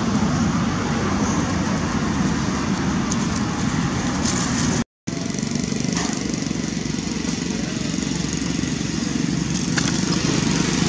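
Steady drone of an engine running, unbroken except for a split-second dropout a little under halfway through.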